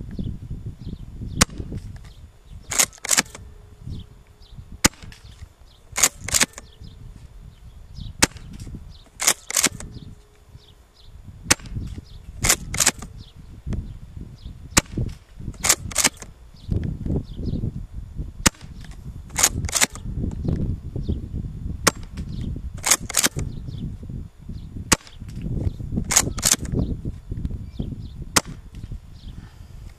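Tokyo Marui M870 gas airsoft shotgun firing in three-BB mode: a sharp crack about every three and a half seconds, nine in all, each followed by a quick double clack as the pump is worked back and forward. Wind buffets the microphone with a low rumble throughout.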